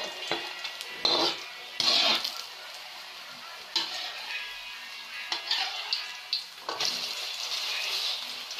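Grated banana patties sizzling in shallow oil in a metal wok, while a slotted metal spatula scrapes and clinks against the pan several times as it presses and turns them. The loudest scrapes come about one and two seconds in.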